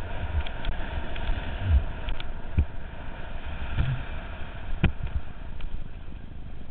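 Riding noise of a mountain bike on a rough dirt track heard from a helmet camera: steady rumble and wind on the microphone, with irregular knocks and clicks as the bike jolts over bumps, the sharpest knock about five seconds in.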